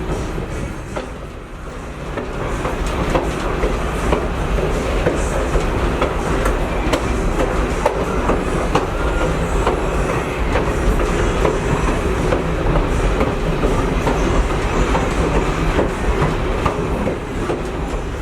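Train rolling over jointed rail: a steady rumble with the wheels clicking over the rail joints. It dips briefly, then grows louder about three seconds in.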